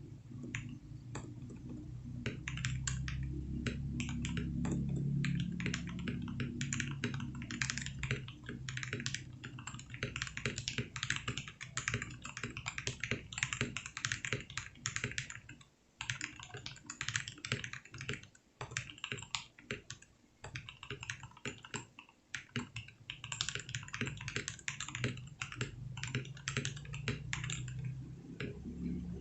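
Typing on an RK61 hot-swap mechanical keyboard with Gateron Yellow milky-top, black-bottom linear switches, a foamed, three-layer tape-modded case and holee-modded stabilizers lubed with dielectric grease: a fast, continuous run of keystrokes. The typing breaks into a few short pauses around the middle.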